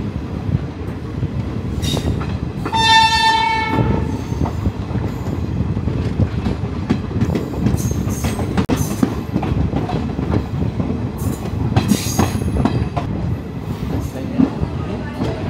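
Passenger train rolling into a station, with a steady rumble of wheels on the track and scattered sharp clicks. About three seconds in, a train horn sounds once, one steady note held for about a second.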